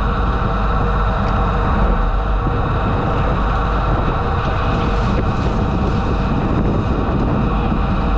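Engine of a tow-behind high-pressure sewer jetter running steadily at constant speed.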